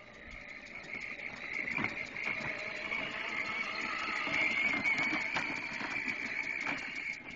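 Battery-powered ride-on toy tractor driving over grass: a steady electric motor and gearbox whine with knocks and rattles from its plastic wheels and trailer. It grows louder as it comes close, peaking a little past the middle, then fades toward the end.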